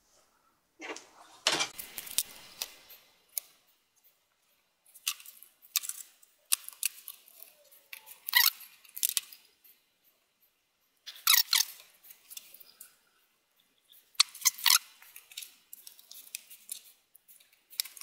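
Cotton swab scrubbing dust off the blades of an HP Notebook 15 laptop's cooling fan. Irregular bursts of rubbing, clicks and short squeaks, with brief pauses between strokes.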